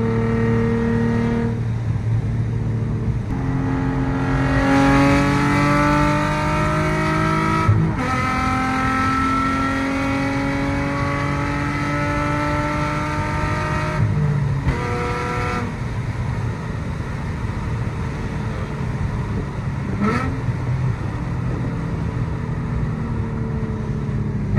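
Car engine and road noise heard inside the cabin while driving. The engine note climbs and drops back a few times as it accelerates through the gears, then settles into a steady cruise.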